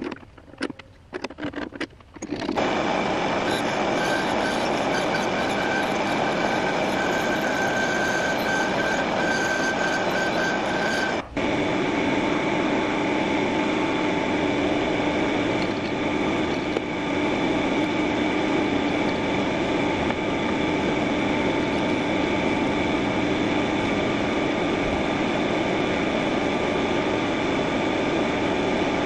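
Small high-speed spindle running with a pointed engraving cutter scribing ruler graduation lines into a metal tap-holder body: a steady machine whine with several held tones. It is preceded by about two seconds of short, broken cutting noises and has a brief dropout about eleven seconds in.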